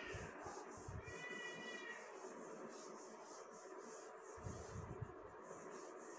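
Chalkboard duster wiping across a chalkboard in quick back-and-forth strokes, a faint swishing hiss about four times a second. About a second in, a brief high-pitched wavering cry sounds over the wiping.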